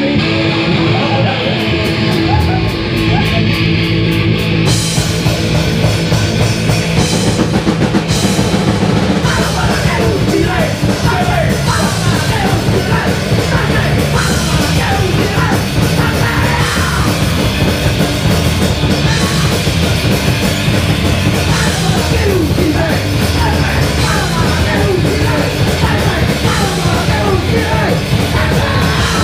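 Live rock band playing loud and hard: distorted electric guitars, bass and a drum kit, with shouted vocals into a microphone. Held notes open it and the full band comes in about five seconds in.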